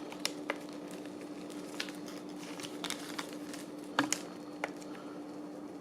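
Scattered light clicks and rustles of an arm-style blood pressure monitor's cuff being handled and wrapped around the arm, over a faint steady hum.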